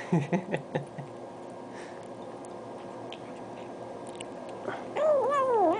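Wet chewing: a handful of quick clicks and smacks in the first second. Near the end a cat meows, its pitch arching up and falling away.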